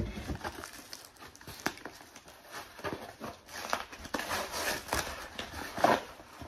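Brown kraft packing paper rustling and crinkling as it is pulled off a glass taper candle holder, with many irregular sharp crackles.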